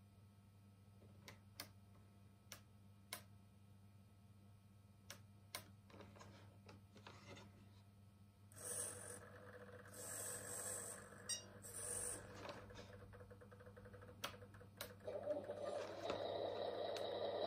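Simulated truck diesel sound from a Beier SFR-1 sound module in a 1/14 RC truck, played through its small speaker. A few faint scattered clicks come first. About halfway in the engine sound sets in, starting up with several short hissing bursts. Near the end it builds and grows louder.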